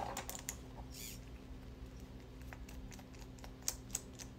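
Sparse small clicks and taps of a precision screwdriver working a tiny screw out of a plastic servo and 3D-printed rack housing, with two sharper clicks near the end, over a faint steady hum.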